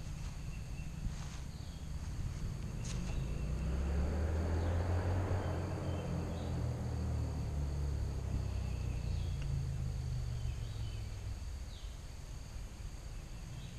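A steady insect chorus of crickets and cicada-like buzzing, with a few short bird chirps. A low engine hum from a passing vehicle or aircraft swells a few seconds in, then fades away near the end.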